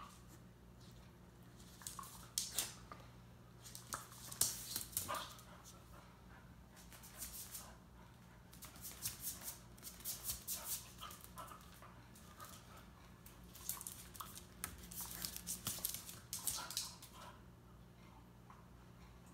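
A Corgi–Labrador mix dog pouncing and scrabbling after a piece of food on a hardwood floor: bursts of claw clicks and skids on the boards, mixed with short yips and whines.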